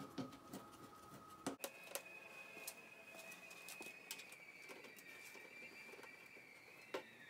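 Near silence: a few faint clicks and taps as steel oil pan bolts are started by hand into the engine block, over a faint steady high whine.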